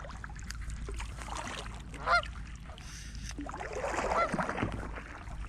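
A goose honking: one short, loud honk about two seconds in and another a couple of seconds later, over steady background noise on the water.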